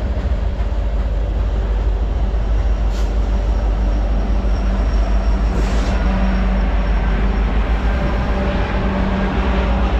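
Union Pacific train rolling past, a loud steady low rumble with a constant hum, and two short sharp clicks about three and six seconds in.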